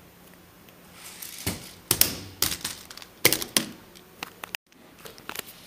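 A Lego toy hot rod tumbling down carpeted stairs and landing on a wooden floor: a run of sharp plastic knocks and clatters, loudest about two seconds in, followed by a few lighter clicks.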